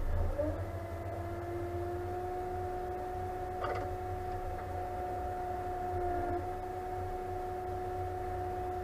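John Deere tractor running, heard from inside the cab: a low engine rumble with a steady whine that rises briefly at the start and then holds level, and a short rattle a few seconds in.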